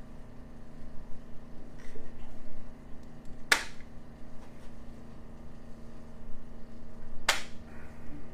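Two sharp, short clicks about four seconds apart, over a steady low room hum.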